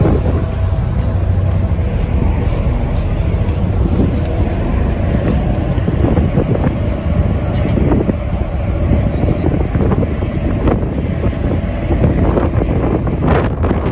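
Car ferry under way: a steady low engine rumble and rushing water, with wind buffeting the microphone.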